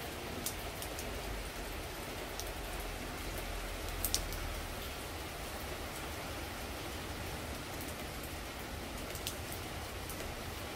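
Steady rain falling onto a paved courtyard, with single drops tapping sharply here and there; the loudest tap comes about four seconds in.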